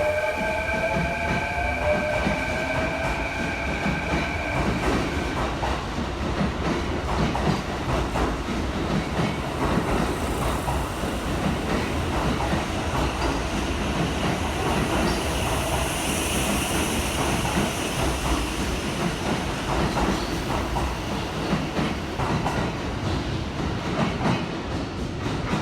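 Electric train getting under way: a whine from its motor drive with several tones, the lower ones rising in pitch for the first few seconds, then a steady running rumble with wheels clacking over the rails.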